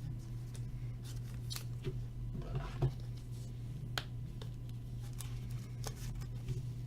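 Light clicks and rustles of trading cards and their packaging being handled, scattered irregularly over a steady low hum, with one sharper click about four seconds in.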